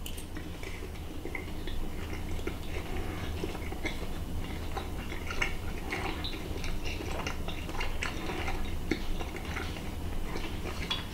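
A person chewing a mouthful of smoked chicken breast close to the microphone: many soft, irregular mouth clicks and smacks, with a sharper click as the fork leaves the mouth at the start. A low steady hum underneath.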